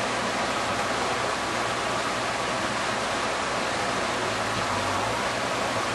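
Steady, even rushing noise that holds constant throughout, with no distinct events in it.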